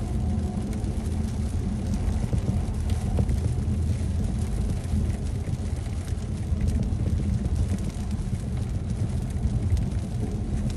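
Steady road and tyre rumble inside a car cabin at motorway speed on a wet road.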